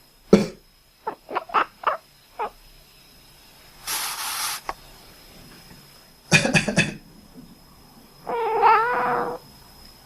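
A person coughing in short fits: one sharp cough, then a quick run of coughs, and another run a little past the middle. Between the fits come a half-second hiss and, near the end, a drawn-out wavering pitched call, which is the cat reacting to the coughing.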